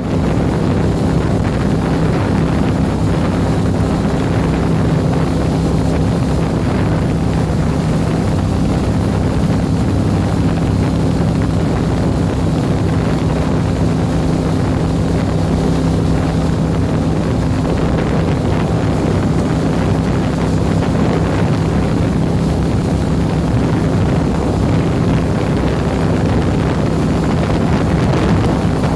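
Boat engine running steadily at speed, one unchanging pitched hum, with wind buffeting the microphone.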